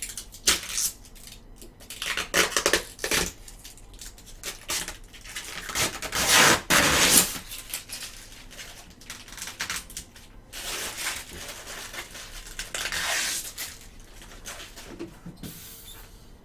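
Packaging being torn and crumpled by hand off a new refrigerator: irregular crinkling and rustling, loudest about six to seven seconds in.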